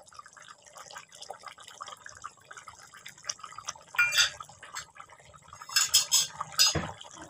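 Fish curry simmering in a pan, the thick gravy bubbling and popping in a steady patter, with louder bursts of bubbling about four and six seconds in and a short knock just before the end.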